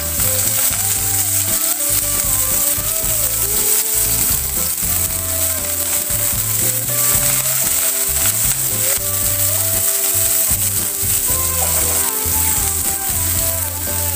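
Sliced onions sizzling in hot oil in a frying pan as they are stirred with a silicone spatula: a steady frying hiss. Background music with a bass line and melody plays under it.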